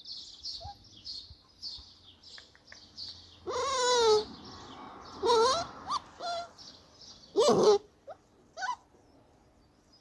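A small bird chirps over and over, about twice a second. Then an animal gives several loud calls, each under a second long, with a wavering pitch. The loudest call comes about seven and a half seconds in.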